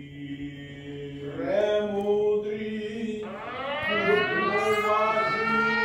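Church choir chanting long held notes in several voices together, a liturgical chant of the Eastern-rite service. It swells louder about a second and a half in, and a little past halfway a voice slides up in pitch into a new sustained note.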